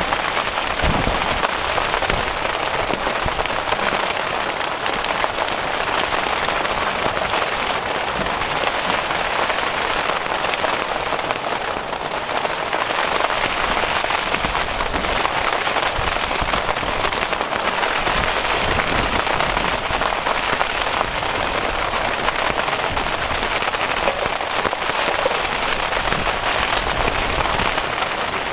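Steady, dense rain pattering on surfaces close by.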